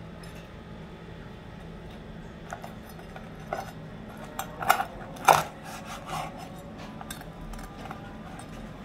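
A stainless knife and fork clicking and tapping on a wooden chopping board while slicing crispy fried pork belly. There are several separate sharp clicks, the loudest a little past halfway, over a steady low hum.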